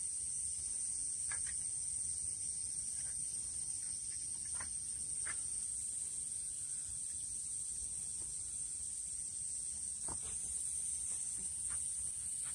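Insects chirring in a steady high-pitched drone, with a few faint clicks.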